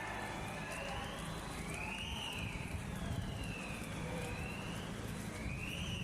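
Fire alarm siren sounding in a test of a conventional fire alarm system: a slow wail rising and falling in pitch, one full sweep about every four seconds, over a low steady background noise.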